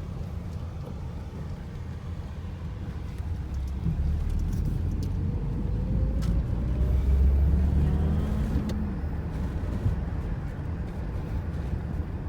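Car driving, a steady low road and engine rumble, with a rising engine note and the loudest stretch about seven seconds in as it picks up speed.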